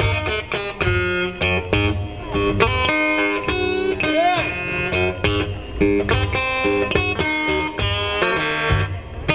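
Blues played on guitar: a steady run of picked notes, with one note bent up and back about four seconds in.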